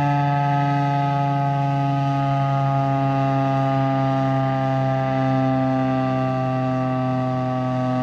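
Federal Signal STH-10 dual-tone outdoor warning siren coasting down after shutoff, its chord sinking slowly and steadily in pitch as the rotors spin down.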